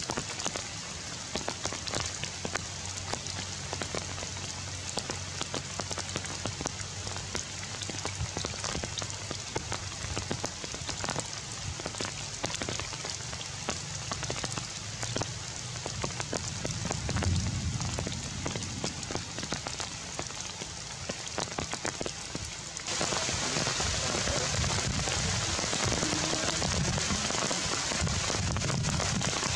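Rain falling on tree leaves, with many separate drop hits through a steady hiss. About three-quarters of the way through it suddenly gets louder and heavier, becoming a dense hiss.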